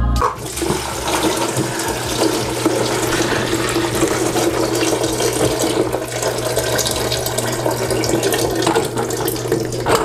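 Leftover water from a toilet tank running out through the fill-valve opening underneath and splashing into a small plastic tray as the valve is loosened, a steady pour.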